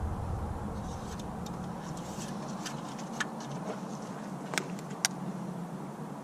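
A few light, sharp clicks and taps over a steady low hum.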